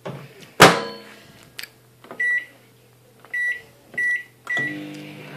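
A loud thump about half a second in, then a microwave oven's keypad beeping four times as the time is entered and start is pressed. The microwave then starts running with a steady hum.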